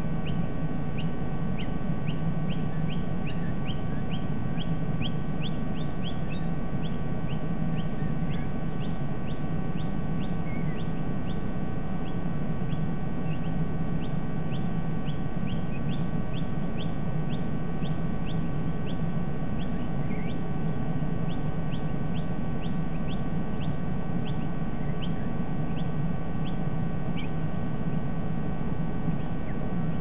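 Short high chirps repeated steadily, about two or three a second, over a constant low hum.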